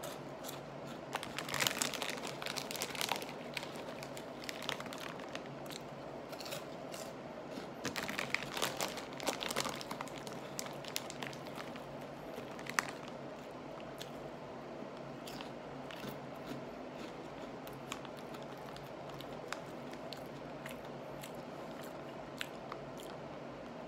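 Crunchy cheese curls being bitten and chewed close to the microphone, dense crackly crunching in the first ten seconds or so, thinning to occasional faint crackles as the chewing winds down.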